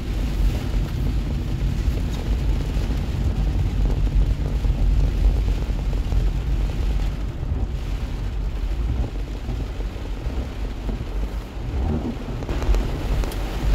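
Heavy rain pelting the car's roof and windshield, heard from inside the cabin over a deep, steady rumble.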